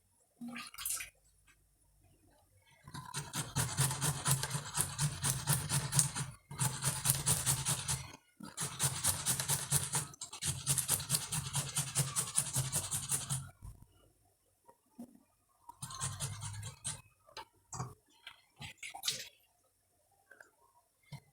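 Tomatoes being grated on a hand grater: fast, even back-and-forth scraping strokes in long runs with brief pauses, then a shorter run near the end, among a few light knocks.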